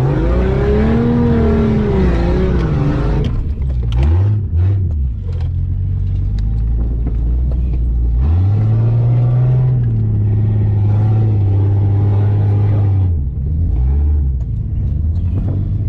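Off-road vehicle engine revving hard: it climbs and falls over the first few seconds, gives short throttle blips about four seconds in, then holds a long high rev in the second half before dropping off, with another quick blip near the end.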